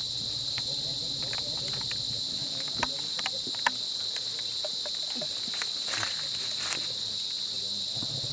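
A steady, high-pitched drone of insects calling in the forest, with a few light sharp clicks from handling about three seconds in.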